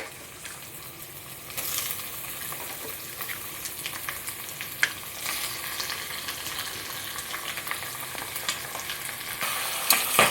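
Chicken pieces frying in hot mustard oil with browned onions, a steady sizzle that grows louder about a second and a half in, with occasional sharp clicks of a utensil against the pan as it is stirred.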